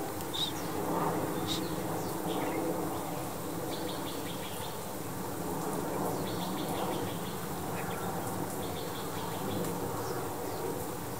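Swinhoe's white-eyes calling: thin high chirps scattered throughout, with short twittering phrases about three, six and nine seconds in, over a steady low buzz.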